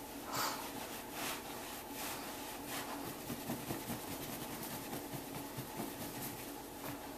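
Cotton bath towel rubbing over a wet cat's fur as it is dried, a run of uneven rustling strokes over a faint steady low hum.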